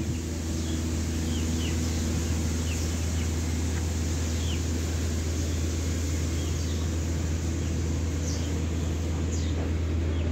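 A steady low mechanical hum, like a running engine or motor, holds at an even level throughout, with short high falling bird chirps every second or so.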